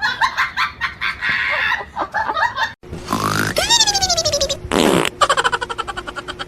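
Fart noises: a long one that falls in pitch, then a short sharp burst and a rapid sputtering buzz. Before them, a choppy voice-like sound cuts off suddenly about three seconds in.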